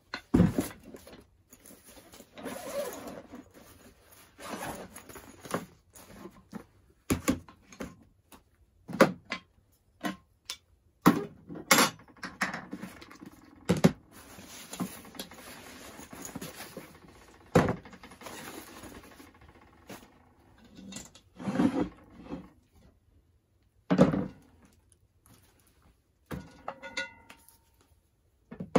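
Handling sounds on a plastic folding table: a padded carry bag is set down and opened with fabric rustling, and a cast iron Dutch oven, its lid and plastic containers are set down. The sounds come as a run of sharp knocks and thunks every few seconds, with rustling in between.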